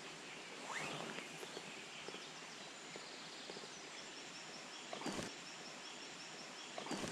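Faint riverside background: a steady outdoor hiss with a bird chirping in quick short series, and one brief knock about five seconds in.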